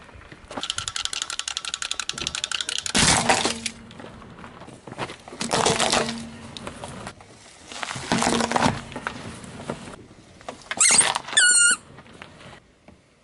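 Car tyre rolling over and crushing small objects on asphalt, a toy car among them: a run of rapid crackling in the first few seconds, then several separate crunching bursts a couple of seconds apart. A short, high, wavering squeak sounds near the end.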